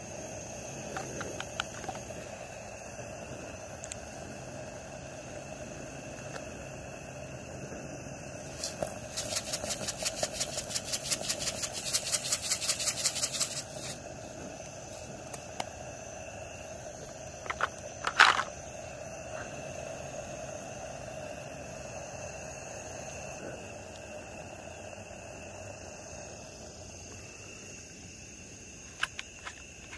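A plastic shaker container is shaken in a fast, even rattle, about five or six strokes a second, for roughly five seconds starting about nine seconds in. A single sharp clink follows a few seconds later, over a steady background rush with thin, steady insect tones.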